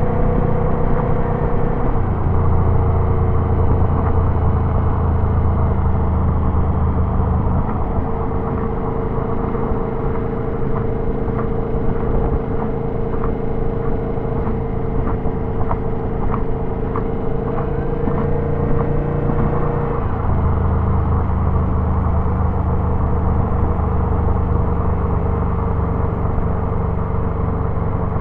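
Turbocharged Subaru engine driving on an expressway, with a steady tone over a low engine drone that changes in strength a few times. A run of evenly spaced ticks comes in the middle.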